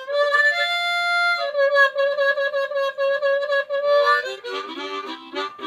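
Harmonica playing a long held note, with a brief step up to a higher note near the start, then a run of quicker, lower notes in the last second or two.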